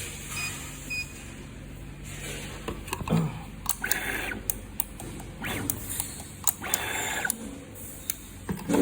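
Automatic wire stripping and soldering machine running a test cycle: a few short beeps about a second in, then sharp clicks and short bursts of air hiss from its air-driven parts as it moves the wire to the soldering position.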